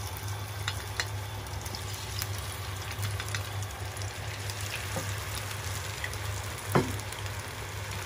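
Battered okra tempura deep-frying in a pan of hot oil: a steady crackling sizzle with scattered small pops, and one sharper sound a little before the end.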